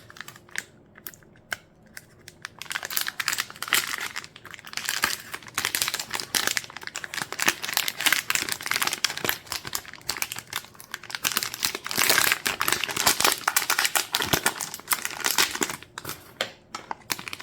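Anti-static bag being handled and pulled open: irregular crinkling and rustling of the plastic, with sharper crackles as it is torn or peeled.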